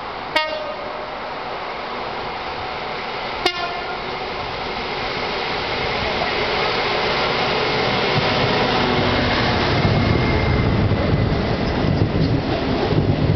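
Class 66 diesel locomotive, with its two-stroke EMD V12 engine, working as it passes with a coal train. The sound grows louder, and the low rumble of the coal hopper wagons rolling over the rails takes over in the last few seconds. Two sharp clicks about three seconds apart near the start.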